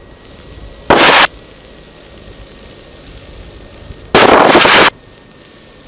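Cessna 150 cockpit noise heard through the headset intercom: a low steady hiss broken twice by loud, harsh, clipped bursts of noise, a short one about a second in and a longer one about four seconds in, as the intercom briefly opens on engine and wind noise.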